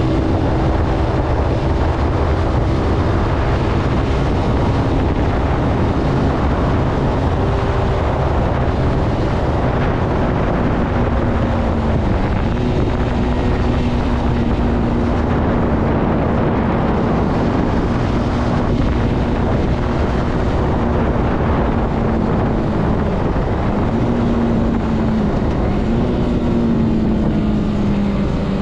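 Zontes C125 motorcycle's 125 cc engine running under way at a steady cruise, its pitch dipping briefly and recovering a few times in the second half, with heavy wind rumble on the microphone.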